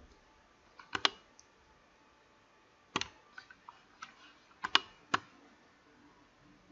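Scattered sharp clicks of a computer mouse, including two quick double clicks.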